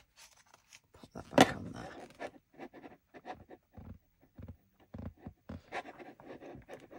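An awl is worked in a freshly pierced hole in the spine of a thick, clipped paper-and-linen journal, with the book being handled. The result is irregular scratching, scraping and rustling, with a sharper scrape or knock about a second and a half in.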